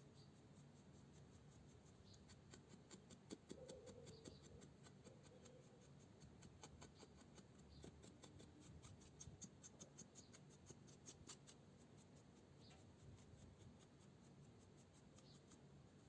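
Near silence: faint scratching and rubbing with many light clicks, like small hand work at a bench.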